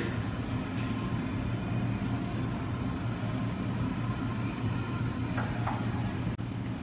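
Steady low rumble with a hum, like machinery running, with a brief dropout near the end.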